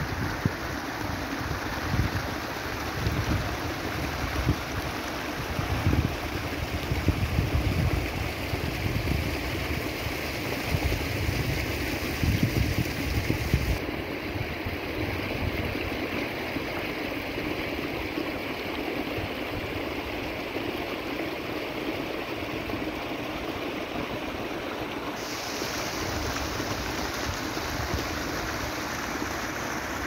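Steady rush of a small stream of water running over stones, with wind buffeting the microphone through roughly the first half.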